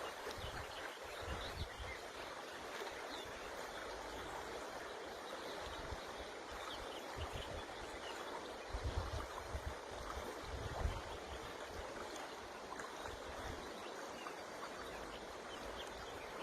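River water rushing steadily, with a few faint short bird chirps above it. Low gusts of wind buffet the microphone a couple of times around the middle.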